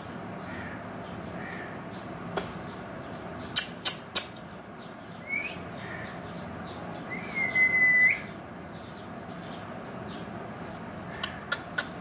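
Indian ringneck parrot (rose-ringed parakeet) calling in its cage. There is a short rising call, then a shrill call about a second long near the middle, over a faint high chirping repeated about three times a second. A few sharp clicks come just before the calls, and a run of quick clicks comes near the end.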